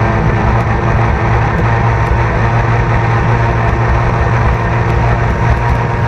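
Two-stroke outboard racing engine of a 300 Super Stock hydroplane running at a low, steady speed, heard close from the boat's deck.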